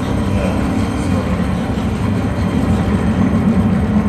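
A steady, loud low rumbling drone in a dance score, growing slightly stronger toward the end, with no clear beat.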